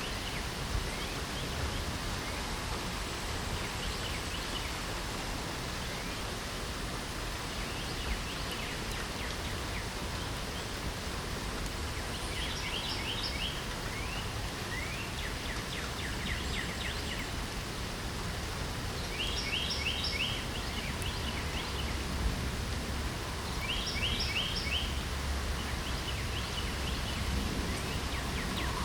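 Steady hiss of light rain, with a songbird singing short phrases of quick, high notes every few seconds, more often in the second half.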